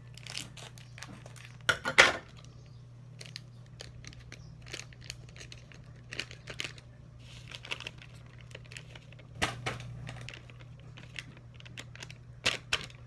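Plastic seasoning sachet of Knorr Ginataang Gulay mix crinkling and crackling as it is handled, in a run of short sharp rustles, loudest about two seconds in. A low steady hum runs underneath.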